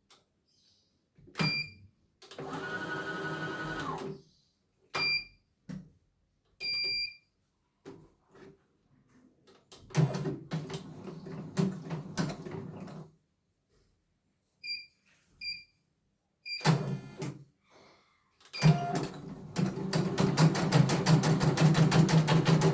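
CNY E900 computerized embroidery machine being operated: short electronic beeps from its control panel, spells of motor and frame movement, then, about 19 seconds in, the needle starts stitching in a fast, even rhythm.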